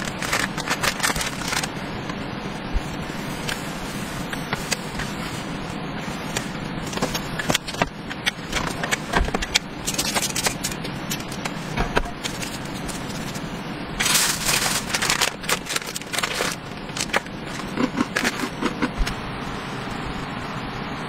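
Handling noises: small clicks, scrapes and rustles of a plastic wet-wipe packet and wrapper being worked at a wooden table, with a louder crinkling of packaging for about two seconds past the middle, over a steady background hiss.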